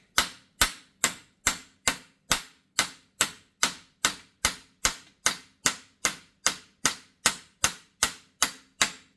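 Steel hammer tapping a universal-joint bearing cap into the front axle yoke: an even run of sharp metallic blows, a little over two a second, each with a brief ring, seating the cap.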